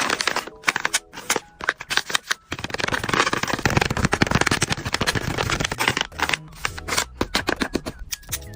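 A plastic blind-bag package crinkling and crackling as it is handled and opened: scattered crackles, then a dense run of crinkling in the middle, then scattered crackles again.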